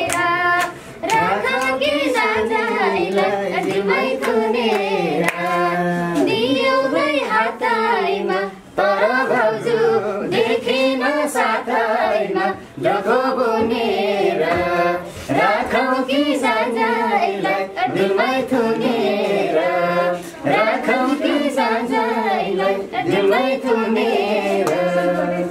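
A voice singing a Nepali folk tune in the dohori style, with hand claps.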